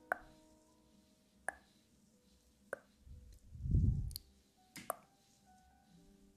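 ASMR plucking trigger sounds: soft, sharp pops about every second or so, over faint sustained background music. A low rushing swell comes near the middle.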